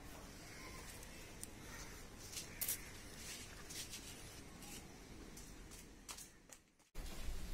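Faint rustling and scattered soft clicks from a handheld phone being moved about. The sound cuts out briefly near the end, then a louder low rumble follows.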